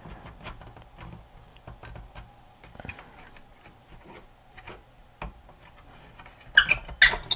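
Light, scattered ticks and clicks of hands handling an amplifier's volume control potentiometer and its mounting hardware while fitting it back onto the circuit board, with two louder clicks close together near the end.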